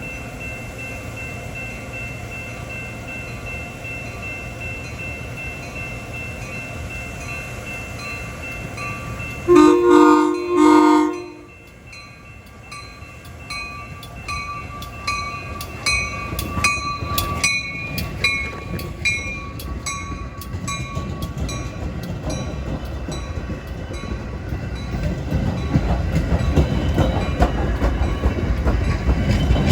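A Metra commuter train's air horn sounds one loud blast of under two seconds, about ten seconds in. After it a bell rings steadily at roughly two strikes a second, and the low rumble of the approaching train builds toward the end.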